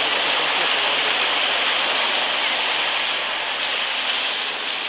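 Steady rushing splash of water churned up by a van's wheels driving through a shallow ford.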